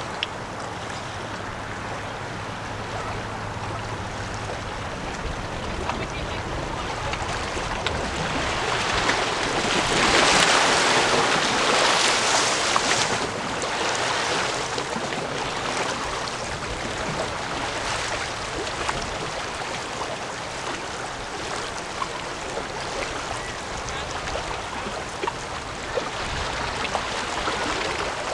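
Steady rushing wind and water noise that swells louder for a few seconds about ten seconds in. A faint low steady hum sits under it for the first few seconds.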